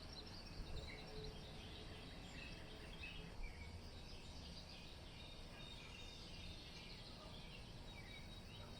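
Faint dawn chorus: many small songbirds chirping in the distance, with a steady low rumble of wind on the microphone underneath.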